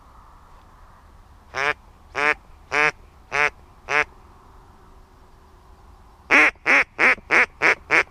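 Loud mallard-type duck quacks: five single quacks at an even pace, then after a short pause a faster run of quacks, about three a second, in the falling pattern of a mallard hen's call.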